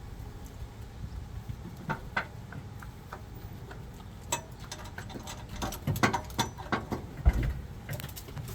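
Scattered light clicks and clinks of hand tools and bolts while fitting sway bar end links, coming quicker in the second half, with one heavier thump about seven seconds in.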